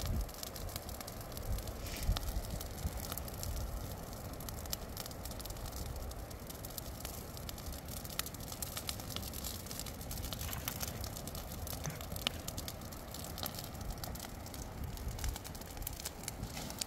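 Dry grass and shrubs burning, with scattered sharp crackles and pops over a low steady rumble.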